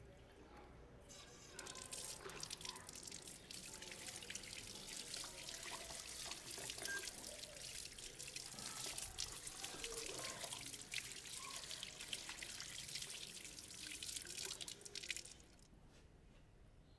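A stream of water splashing over a small metal anvil held in gloved hands, rinsing off a chemical rust-removal bath. The splashing starts about a second in and cuts off suddenly near the end.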